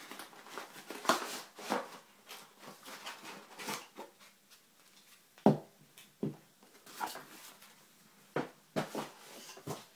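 Packaging being handled and pulled out of an opened parcel: irregular rustles, crinkles and light knocks, the sharpest knock about halfway through.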